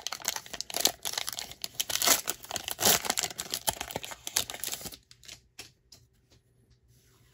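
Foil wrapper of a Pokémon booster pack being torn open and crumpled as the cards are pulled out: a dense crinkling crackle full of small ticks. The crinkling stops about five seconds in, leaving only a few faint clicks of cards being handled.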